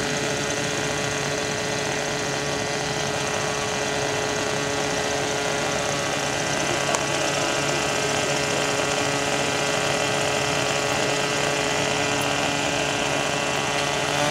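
Hirobo JetRanger radio-controlled model helicopter's small two-stroke glow engine idling steadily on the ground, its main rotor turning slowly. A single click about seven seconds in.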